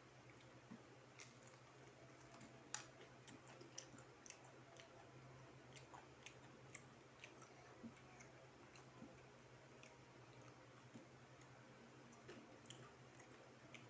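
Faint chewing of crispy battered fried chicken: scattered small crunches and mouth clicks, the loudest about three seconds in, over a steady low hum.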